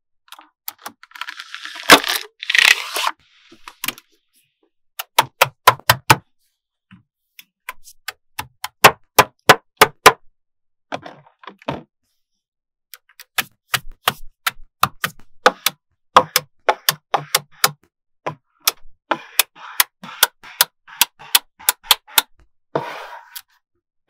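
Small magnetic balls clicking and snapping together as rows and blocks of balls are set onto a magnet-ball build: many sharp clicks, some single, some in quick runs. Scraping and rubbing from a white board and ball panels being slid into place, about a second in and again near the end.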